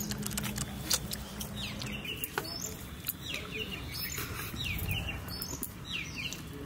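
Small birds chirping again and again, short falling chirps every second or so, with a few light clicks of hands eating from steel plates.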